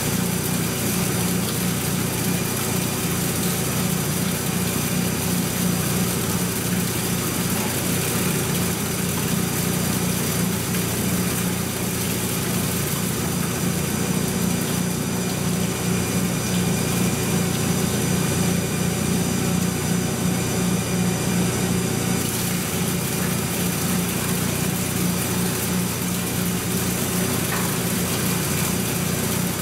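Steady electric machinery hum from the running Monarch Series 90 lathe setup, its phase converter and coolant pump, with coolant pouring in a stream onto the carriage and chip pan.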